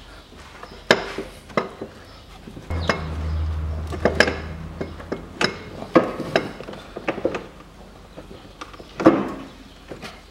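Irregular knocks and metallic clinks as an air-conditioning compressor and its hoses are worked by hand into place in a car's engine bay, with a low hum for about two seconds in the first half.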